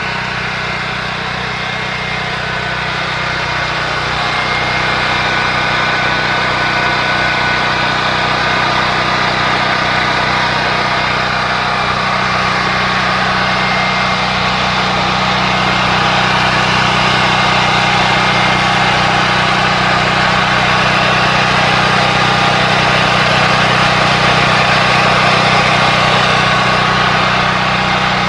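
Harbor Freight portable generator's OHV gasoline engine, converted to tri-fuel, running steadily on natural gas. It grows a little louder about four seconds in.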